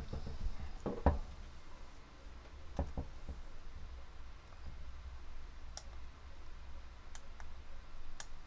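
Computer mouse clicking: a pair of sharp clicks about one second in, another pair about three seconds in, then a few fainter ticks, over a low steady hum.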